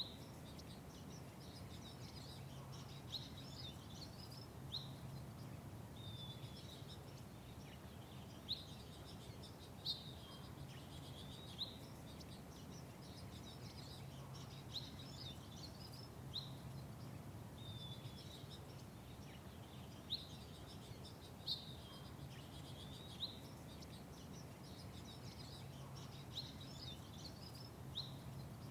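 Small birds chirping, short sharp calls every second or two, over a steady low background hum.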